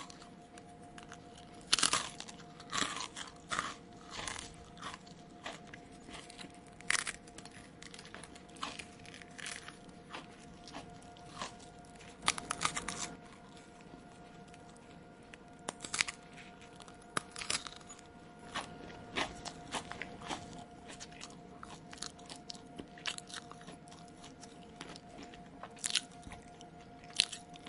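Close-up mouth chewing of crunchy food: irregular wet crunches and crackles, several a second at times and then sparser, with short pauses between.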